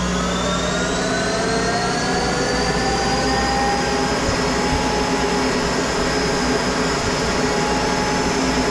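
Monarch 10EE lathe spindle running up to speed, its whine rising in pitch over the first few seconds and then holding steady as it settles at about 3,900 rpm.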